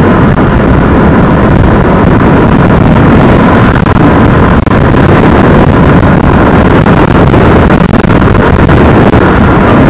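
Loud, steady wind rushing over the microphone of a moving motorbike, mixed with the bike's engine and road noise.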